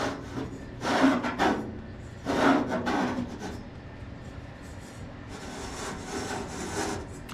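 Screw-on foot of a fire pit being turned by hand, rubbing against the body as it threads on. There are two louder strokes in the first three seconds, then fainter, steadier rubbing.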